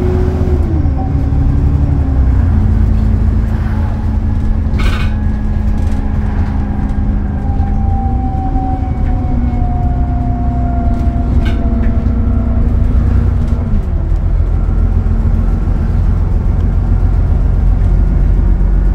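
Alexander Dennis Enviro400 diesel double-decker bus on the move, heard from inside the passenger saloon: a heavy engine and drivetrain drone with a whine whose pitch drops early on, rises briefly about eight seconds in and drops again about fourteen seconds in as the bus changes speed. Now and then a short knock or rattle.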